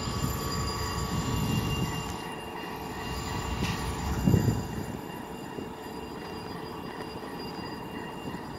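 CSX diesel freight locomotives running: a low engine rumble with several steady high-pitched whining tones over it, and a louder low thump a little past the middle.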